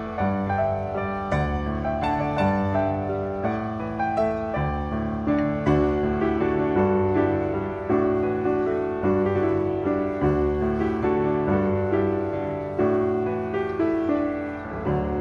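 Background piano music, a melody of separate notes struck one after another.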